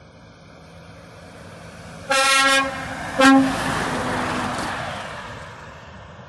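Semi-trailer truck sounding its horn twice as it passes close by, a longer blast about two seconds in and then a short one. The engine and tyre noise of the passing truck swells and then fades away.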